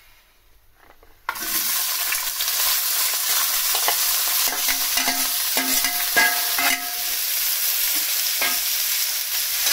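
Diced ridge gourd dropped into hot oil in a steel kadai: a sudden loud sizzle starts about a second in and keeps on steadily. A steel ladle clinks and scrapes against the metal plate and pan several times in the middle, as the pieces are pushed in.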